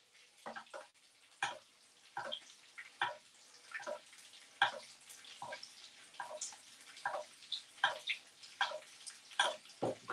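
Basting in a frying pan: hot fat spooned over the food, heard as short, irregular spits and splashes about one or two a second, with the odd tap of the spoon on the pan.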